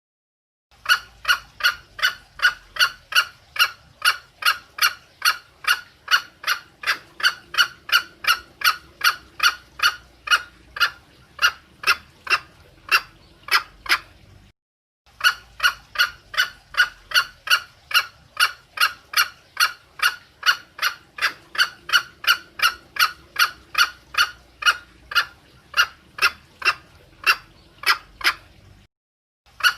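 Green junglefowl hen calling: a rapid, even run of short clucks, about three a second, in two long bouts with a brief break about halfway. This is the hen's call that draws the cock, played as a lure.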